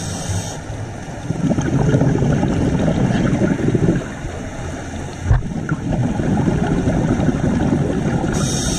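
Scuba diver's regulator exhaust bubbles gurgling underwater, in two long surges of a few seconds each, with a sharp knock between them about five seconds in.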